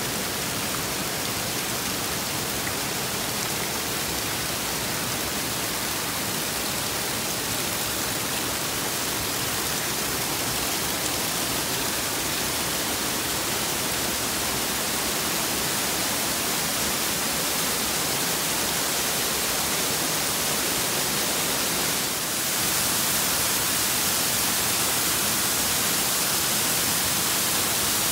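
Steady rushing of the Little Luckiamute River's flowing water, an even hiss with no distinct splashes. About 22 seconds in it becomes a little louder and brighter.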